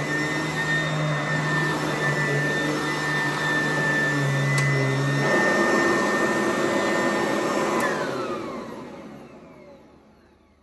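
Sanitaire upright vacuum cleaner running with a steady motor whine. Its low hum drops out about halfway through, then the motor is switched off and its whine falls in pitch as it spins down to near silence.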